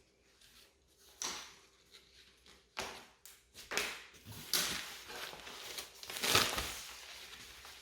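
Unboxing handling noise: irregular rustles and scrapes of plastic packaging with several knocks, the loudest about four and a half and six seconds in, as a carry-on case is taken out of its plastic box.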